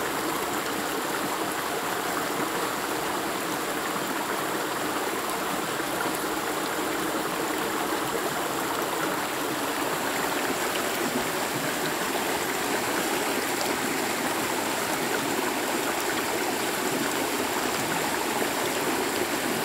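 Shallow rocky stream rushing over and around boulders in small rapids, a steady, unbroken wash of water.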